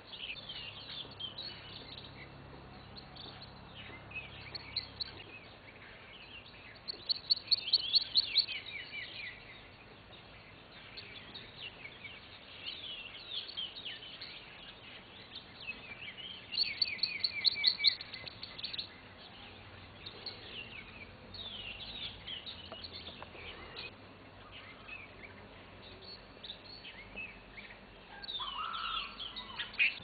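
A mixed group of small songbirds feeding in a bush, chirping and calling continuously with high, thin notes. Two loud bursts of rapid repeated, falling notes stand out about 7 and 17 seconds in, and a lower call comes near the end.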